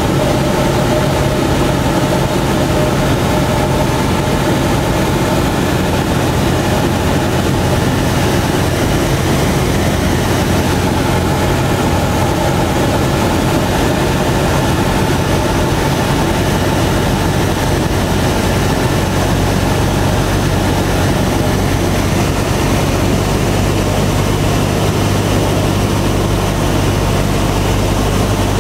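Cessna 172's piston engine and propeller droning steadily, heard from inside the cabin during the descent to land. The engine note drops slightly about two-thirds of the way through.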